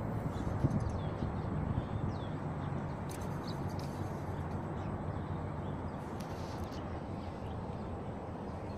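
Steady low rumble of wind buffeting the microphone, with a few faint bird chirps above it.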